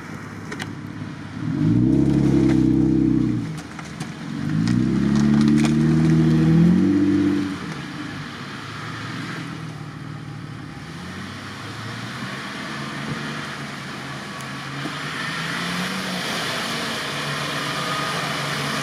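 Off-road SUV engine revved hard twice as the vehicle pushes through deep mud, each burst lasting two or three seconds, then running at lower revs and growing slowly louder as it crawls on.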